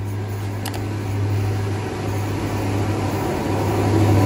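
Alsthom diesel-electric locomotive hauling a freight train, its engine a steady low drone that grows louder near the end as the train approaches.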